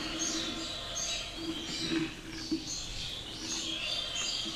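Small birds chirping over and over in the background, with a low hum that comes and goes.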